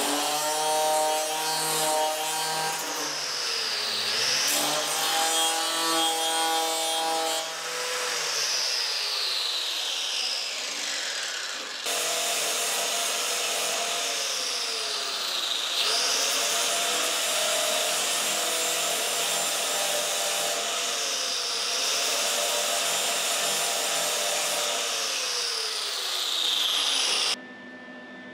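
Angle grinder grinding sheet steel, a steady gritty grinding noise under a motor whine that falls in pitch as the disc bites into the metal and rises again as it frees up, several times over. Near the end it cuts off suddenly to a much quieter background.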